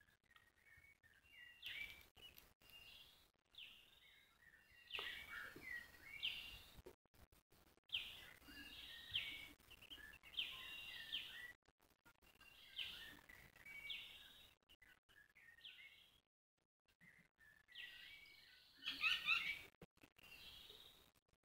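Faint bird chirping: clusters of short, high calls repeating again and again, with a quicker, louder run of chirps near the end.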